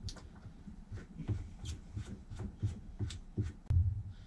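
Hands handling and fitting parts: a run of quick light clicks and taps, about three a second, with a heavier thump near the end.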